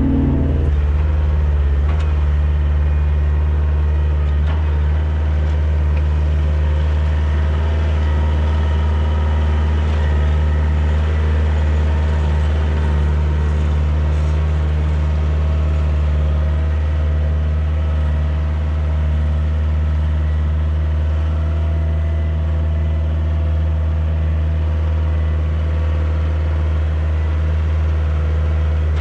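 Diesel engine of a 2012 Kioti DK40se compact tractor running at a steady speed with a deep, even drone, while its loader-mounted root rake works through fern roots.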